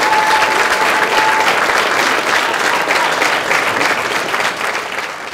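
Audience applauding, a dense steady clapping with a single held note over it in the first second and a half. The applause fades near the end.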